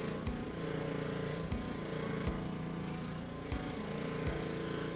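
Honda-engined gas pressure washer running at a steady pitch while its wand sprays water on a lawn chair.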